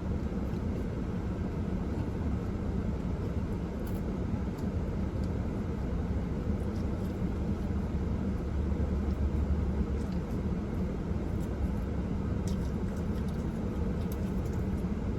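Steady low background rumble with faint scattered clicks from a person chewing and handling food.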